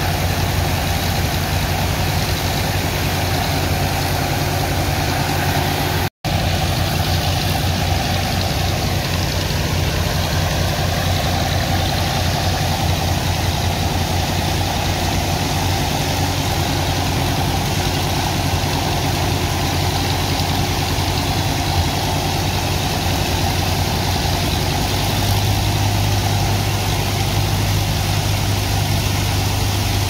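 Engine of a sand-dredging pump running steadily with a fast pulsing hum, under the hiss of high-pressure water jets spraying into wet sand. The sound cuts out for an instant about six seconds in, and the low hum grows stronger near the end.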